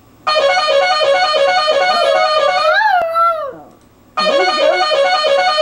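Electronic keyboard-like music playing a fast repeating run of notes, which stops for about a second near the middle. Just before the break, a dog's howl rises and falls in pitch over the music.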